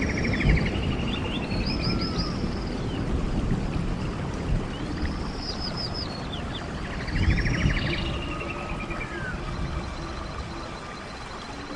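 A songbird singing repeated phrases, each a trill followed by high slurred notes, over the low rushing noise of a stream. The rushing fades toward the end.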